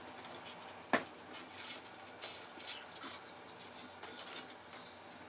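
Hands working cables inside a PC case: small scratchy rustles and light clicks, with one sharp click about a second in.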